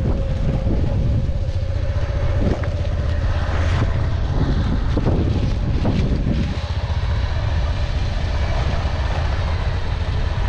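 Steady low rumble with wind buffeting the microphone, and a faint wavering tone through the first half.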